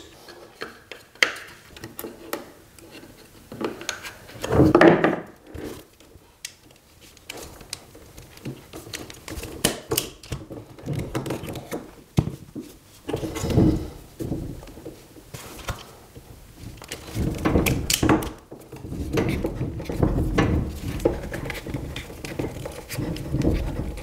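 Scattered clicks, rustles and scrapes of grey-sheathed twin-and-earth electrical cable being stripped with automatic wire strippers, the outer sheath cut and pulled off the cores, with a few louder handling noises along the way.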